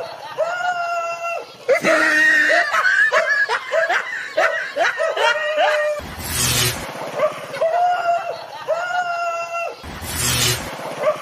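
High-pitched laughing: repeated drawn-out notes, a faster run of short gliding notes in the middle, and short harsh noise bursts about six and ten seconds in.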